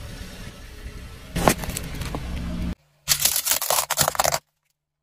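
Car tyre rolling over a plastic lighter and a cigarette pack on asphalt: a sharp crack about a second and a half in, then a dense burst of loud crunching and crackling about three seconds in that cuts off abruptly.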